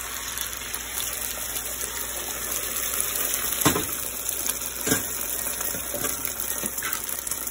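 Beaten egg sizzling in hot oil in a non-stick pan: a steady frying hiss, with two short knocks about three and a half and five seconds in.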